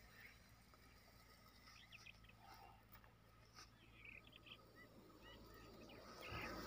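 Near silence outdoors, with faint short bird chirps scattered through it and a soft rustle near the end.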